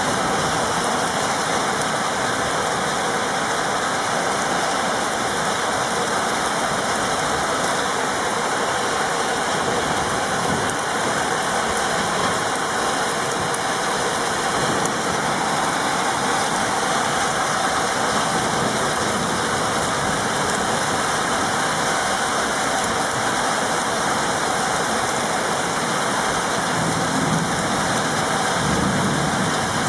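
Heavy rain falling steadily in a thunderstorm downpour: an even, unbroken hiss.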